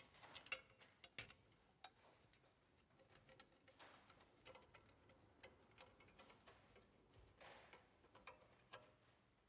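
Near silence with faint, scattered clicks and taps as the metal frame parts of a corner-cabinet carousel are handled and screwed together by hand with a screwdriver.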